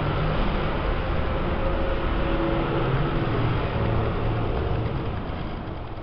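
Steady rumble of traffic noise with a low hum, easing slightly near the end.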